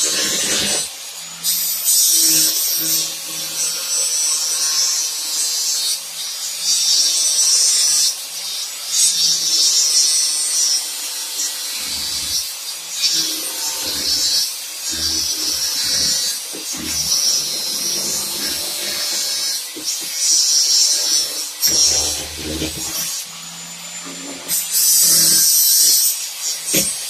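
Small power tool cutting through the folded hem of a 1968 Chevy C10's steel door skin: a steady motor whine with a high hiss that comes and goes in bursts as the tool bites into the metal.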